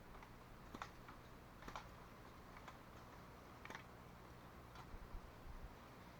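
Faint sharp ticks about once a second, five in all, over a near-silent background.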